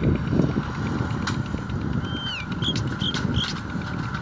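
Massey Ferguson 385 tractor's diesel engine working hard as it pulls an 11-tine cultivator through hard ground in third gear low range, heard from a distance as a steady rumble. About halfway through, a bird gives a falling whistle followed by three short chirps.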